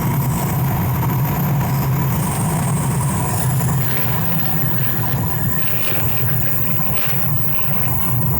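Steady low mechanical rumble, as of a vehicle engine running, with no clear change in pitch or level.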